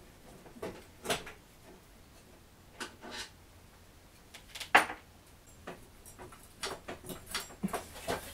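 Irregular knocks and clinks of hand tools and metal parts being handled while working the exhaust off a motorcycle, the loudest about five seconds in and several in quick succession near the end.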